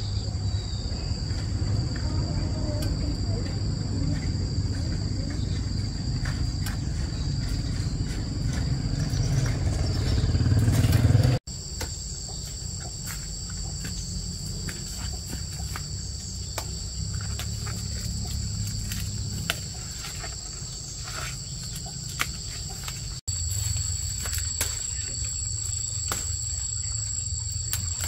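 Insects trilling as a steady high-pitched drone over a low rumble. The rumble swells about ten seconds in, and the sound cuts out abruptly twice, about eleven and twenty-three seconds in.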